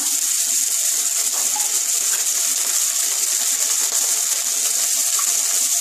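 Tomato, cumin seeds and ginger paste frying in hot oil in a kadai: a steady high sizzle.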